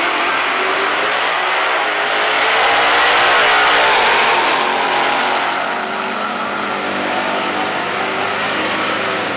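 Two 1960s Super Stock drag cars launching side by side at full throttle, their V8 engines loud from a sudden start and climbing in pitch. The sound peaks a few seconds in as they pass, then eases as they pull away down the strip.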